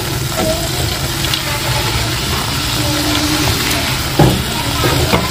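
Steady low rumble, with a metal spatula knocking twice against the kadhai near the end as the barfi mixture is stirred.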